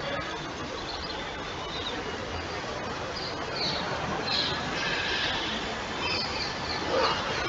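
Steady background hiss with occasional short, high bird chirps.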